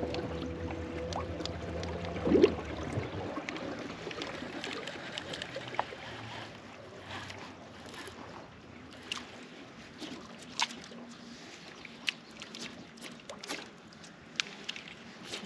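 Water lapping and trickling against a fishing kayak's hull, with scattered small ticks and splashes. A low steady hum with a few tones fades out about three seconds in.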